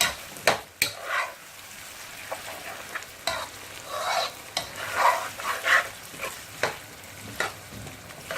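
Minced-meat and potato curry being stirred in a frying pan: irregular scraping strokes of a cooking utensil through the thick masala, with sharp clicks where it knocks the pan, over a steady sizzle of the frying food.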